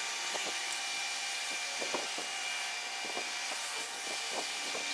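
Steady workshop hiss with a few faint, light clicks and taps scattered through it, as of small parts being handled.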